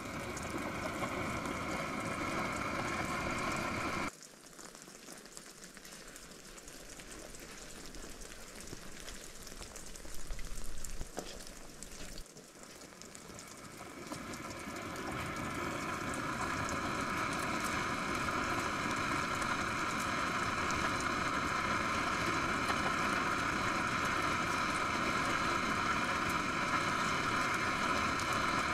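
A pot bubbling at the boil over a gas camping stove, with the burner's steady hiss. The sound drops away abruptly about four seconds in and comes back after about twelve seconds, growing louder.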